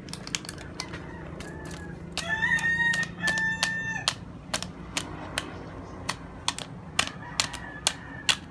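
Light, irregular taps and clicks as the seasoning sachets are tapped. About two seconds in comes a bird's long call in two parts, the loudest sound here, and a fainter call follows near the end.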